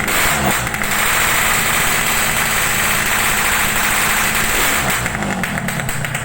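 Loud aftermarket exhaust of a running vehicle engine.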